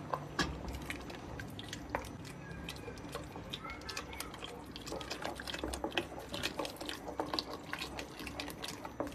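Thin yogurt and egg-white mixture pouring from a plastic container into a steel pot of broth, splashing and dripping, with many scattered light clicks and taps.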